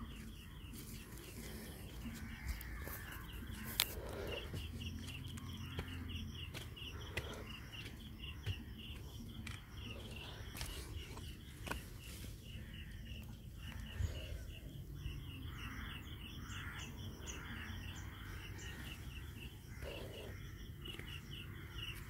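Outdoor riverbank ambience: a steady, rapid high-pitched chirping, about four or five chirps a second, with a few sharp clicks.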